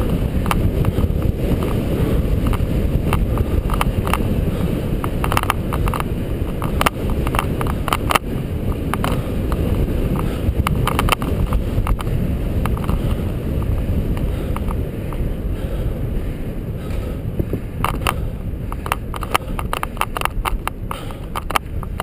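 Bicycle riding fast on a concrete velodrome track, heard from a camera riding along: a steady rumble of wind on the microphone and tyres on concrete, with frequent short ticks and knocks.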